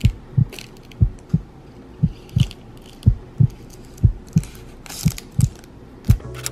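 Heartbeat sound effect: a deep double thump about once a second, seven beats in all, with faint light ticks between them.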